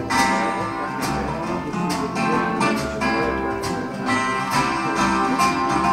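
A song with acoustic guitar and a steady beat about once a second, played through a high-end hi-fi system.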